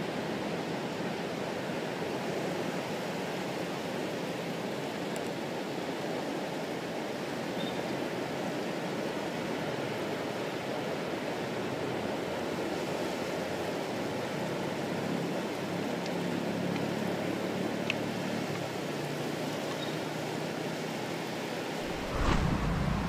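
Steady rushing of surf breaking on a pebble shore. Near the end there is a sudden low thump and rumble.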